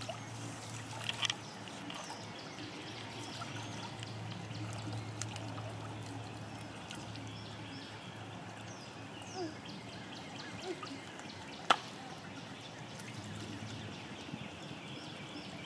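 Shallow rocky stream trickling steadily, with ducks paddling and splashing in the water. A few faint short calls, and one sharp click about two-thirds of the way through.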